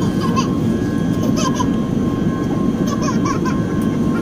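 Steady low roar inside the cabin of an Airbus A380 on approach: engine and airflow noise through the fuselage, with a faint steady whine above it.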